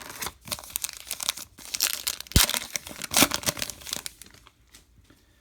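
Baseball card pack wrapper being torn open and crinkled, a run of crackles and sharp snaps, the two loudest about two and a half and three seconds in, then quieter handling near the end.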